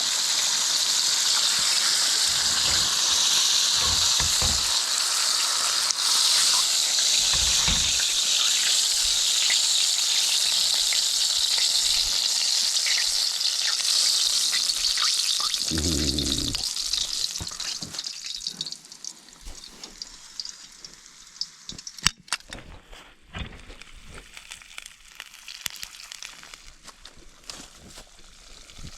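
Hot oil with chorizo and chili crisp sizzling loudly and steadily, then dying down about two-thirds of the way through to a faint crackle. A short low hum sounds just before the sizzle fades, and one sharp click comes a few seconds later.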